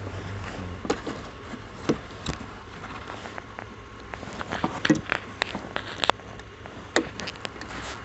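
Jumper cables and their clamps being handled at the battery: an irregular scatter of clicks and knocks, the sharpest about five and seven seconds in.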